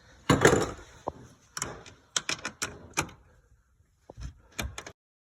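Irregular metallic clicks and knocks of a ratchet wrench and 12 mm socket being worked onto the nuts on top of a rear strut mount, with a short ringing ping of metal twice. The sound cuts off abruptly shortly before the end.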